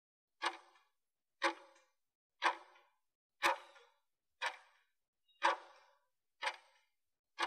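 Interval timer's clock-tick sound effect ticking once a second, eight sharp ticks with silence between them, counting down the last seconds of a 20-second work interval.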